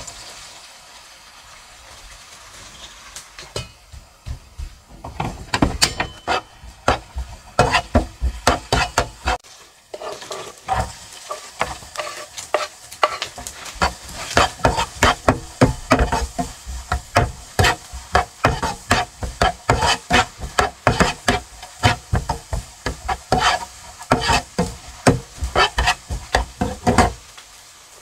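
Food sizzling in a frying pan while being stirred: from about five seconds in, a spoon knocks and scrapes against the pan about two to three times a second.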